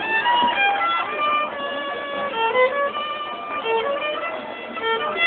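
Solo violin playing a melody, a running line of quick notes mixed with a few longer held ones.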